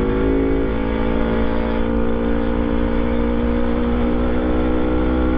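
Kawasaki Ninja sport bike's engine running at steady cruising revs, rising slightly in pitch under a second in, under heavy wind noise on the microphone.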